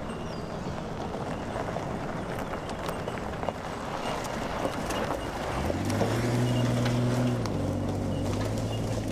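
Police four-wheel drive driving along a dirt and gravel track, with tyre noise and small stones clicking throughout. A steady low engine hum comes in and grows louder as the vehicle passes close, about two-thirds of the way through.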